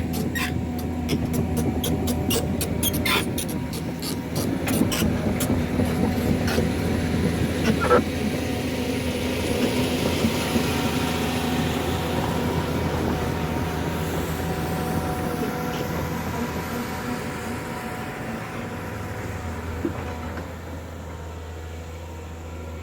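Diesel engine of heavy road-building machinery running steadily, with a quick run of sharp metallic clanks and knocks in the first several seconds and another knock about eight seconds in. The engine grows quieter near the end.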